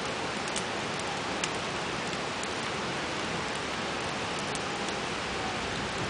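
Steady rushing outdoor background noise, with a few faint sharp crackles from the campfire burning in a steel fire ring.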